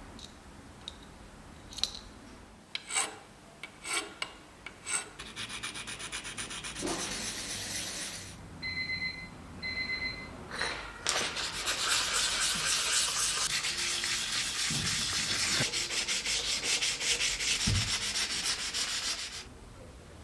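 Fast back-and-forth rubbing strokes on a small Vespa part worked by hand, as in sanding and polishing it. They come in a short spell, then a long, louder one, with a few clicks before them and two short high squeaks between.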